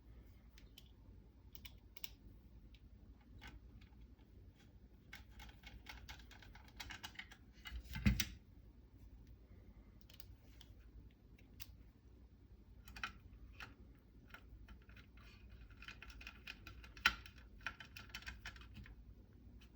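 Scattered small metallic clicks and rattles from a Torx screwdriver and small parts being worked on a rifle receiver, as the T20 Torx screws holding the front plate bracket are tightened down. The clicks come in two busier patches, with a louder knock about eight seconds in and a sharp click near the end.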